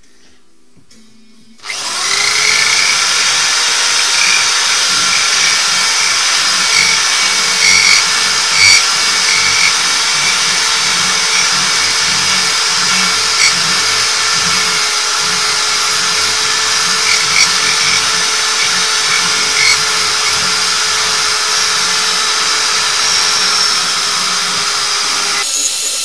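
Electric drill honing the bore of a front brake caliper, running at a steady speed. It starts about two seconds in, with a few short louder scrapes along the way.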